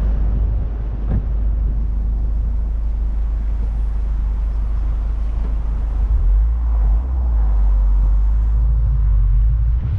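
Subaru WRX's turbocharged flat-four engine running with a steady low exhaust rumble, which grows heavier in the last few seconds as the car starts to move off.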